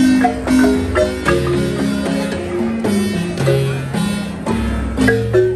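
Wooden marimba played with mallets: quick runs of struck notes over held low notes.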